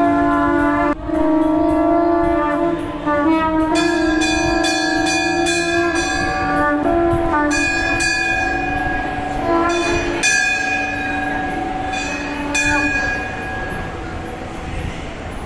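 Conch shell (shankha) blown in a series of long, steady, horn-like notes with short breaks between the blows, which stop about thirteen seconds in. Bells ring alongside from about four seconds in. This is the conch call that announces the opening of the altar for darshan at aarti.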